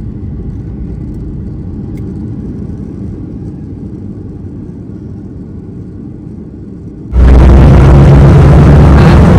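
Cabin noise of a SpiceJet jet airliner rolling along the runway after touchdown: a steady low rumble. About seven seconds in it cuts sharply to a much louder steady rumble with a low hum.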